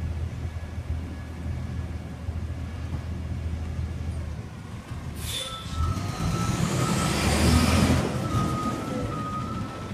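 Curotto-Can garbage truck idling, then a sharp air-brake hiss about five seconds in. The diesel engine then revs up, loudest near eight seconds, while the backup alarm beeps at an even pace.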